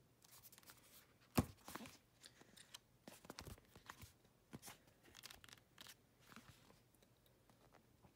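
Pages of a paperback manga volume being opened and flipped through by hand: faint, irregular paper rustles and soft ticks, with one sharper snap about a second and a half in.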